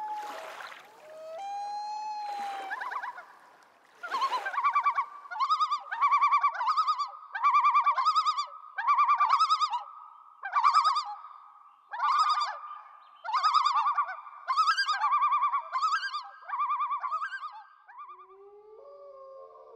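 Common loon calling: one long wail, then a long run of loud quavering phrases repeated about once a second, stopping shortly before the end.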